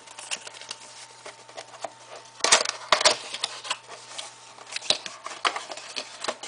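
A cardboard box with clear plastic packaging being handled and opened: scattered rustles and clicks. There is a louder crackle of plastic about two and a half seconds in, and another half a second later.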